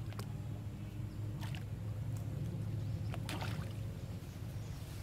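Macaques swimming and splashing in water, with three short splashes at about the start, a second and a half in, and a little past three seconds, over a steady low engine hum.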